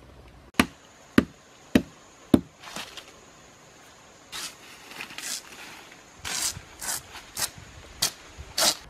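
Four sharp chops of a blade into wood, evenly spaced about half a second apart, then bark being torn in strips from a tree trunk in a run of scraping, tearing rushes.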